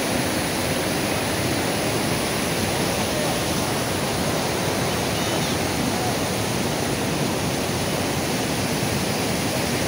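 Steady rush of white water at Duduma waterfall, pouring over the rock ledges at the top of the falls.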